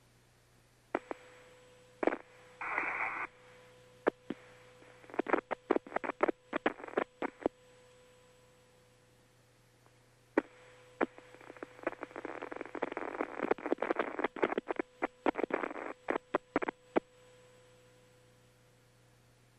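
Crackling radio static and sharp clicks on the shuttle's air-to-ground communications loop, over a faint steady hum. It comes in two rough clusters of bursts a few seconds long, with a quieter gap between them: the broken-up signal as communication with Space Shuttle Columbia was being lost.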